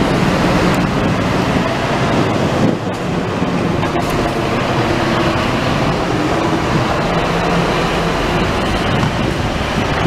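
Diesel coach engine running as the bus pulls away, with a steady low hum under a broad rumble and wind noise on the microphone.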